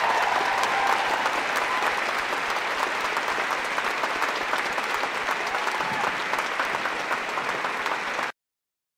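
Audience applauding after a live song, a dense steady clatter of clapping that cuts off suddenly near the end.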